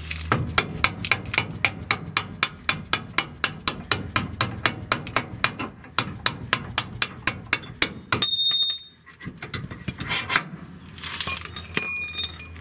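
Hammer striking a steel punch to drive out a rear leaf-spring shackle bolt on a Toyota Tacoma: a fast, even run of metal-on-metal blows, about four a second, for some eight seconds. Then come a few clinks and ringing metallic tones.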